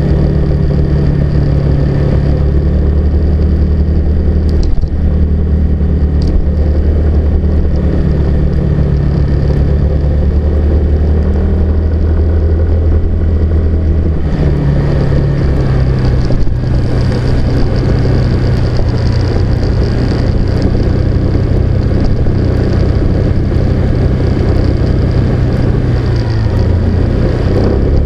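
A car's engine hum and road rumble while driving, steady and loud. The engine note drops to a lower pitch about halfway through and shifts again shortly before the end.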